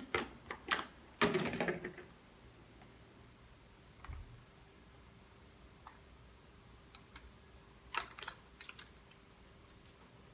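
Small plastic clicks and taps from handling and fitting a ring light's remote control: a quick cluster of clicks in the first two seconds, then a few faint clicks about eight seconds in.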